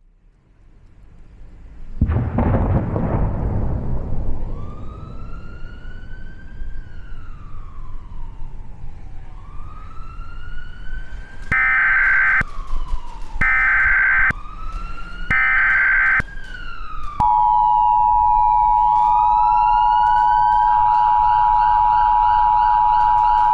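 A loud boom, then police sirens wailing up and down, followed by three short bursts of Emergency Alert System SAME header data tones. About two seconds after the last burst, the steady two-tone EAS attention signal begins.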